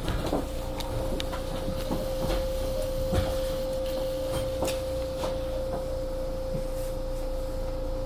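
Inside a JR Kyushu 813 series electric train standing at a station: a steady hum holding one tone, with scattered knocks and clicks.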